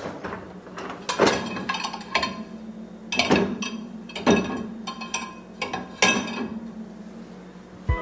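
Background music with a note struck about once a second over a steady held tone, mixed with light clinks of ceramic plates against a dishwasher's wire rack.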